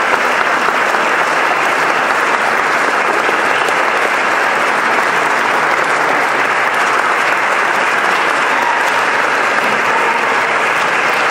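Audience applauding steadily for an award recipient arriving at the podium.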